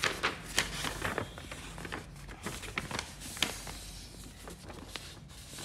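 Sheets of printed paper rustling and crinkling as they are handled and folded over: a quick run of short, sharp crackles, thinning out after about three and a half seconds.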